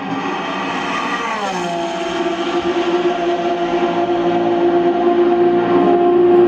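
Race car engine running with a steady drone. Its pitch drops sharply about a second and a half in, then holds level as the sound grows louder.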